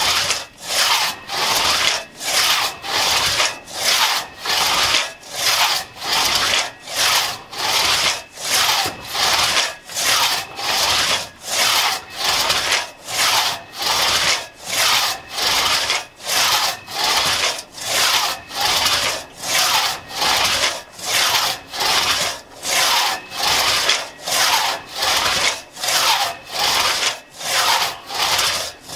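A 4.5-foot Tuttle-tooth one-man crosscut saw cutting through a log in a steady push-pull rhythm of about two rasping strokes a second.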